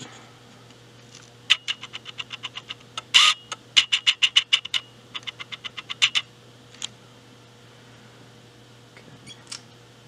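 A rapid, even run of small sharp clicks, about seven a second, in three bursts, with a louder clatter among them, as plastic DIP IC sockets and a printed circuit board are handled; one or two single clicks follow.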